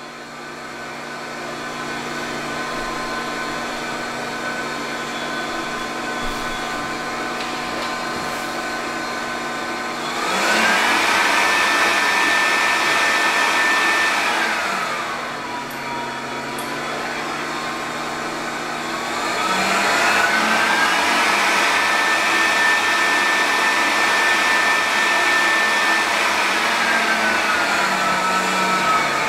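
Electric fan blowing air up a tube, running with a steady whine whose speed is varied: the pitch rises and the sound grows louder about ten seconds in, drops back around fifteen seconds, climbs again around twenty seconds and begins to ease down near the end. The speed changes set the height at which a ball floating in the airstream settles.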